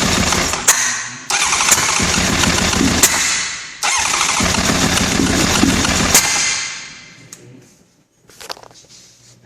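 A 1996 Honda CBR900RR's inline-four cranked on its electric starter in three bursts of a couple of seconds each, the last one trailing off, without settling into a run: the bike won't start.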